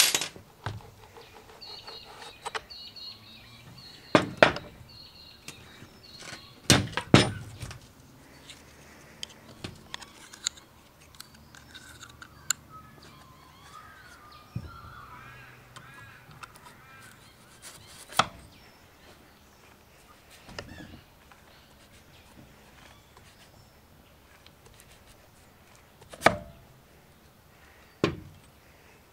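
Metal brushcutter and pruner-attachment parts clicking and knocking as they are handled and set down on a glass-topped table, a handful of sharp knocks spread through, with birds chirping faintly in between.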